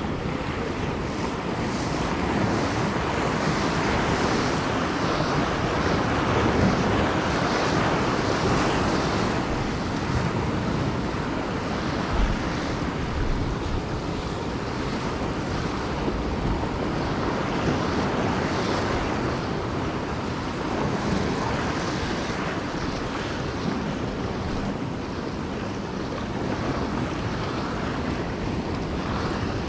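Sea surf washing in with wind buffeting the microphone, the rush swelling and easing every several seconds, with one brief bump near the middle.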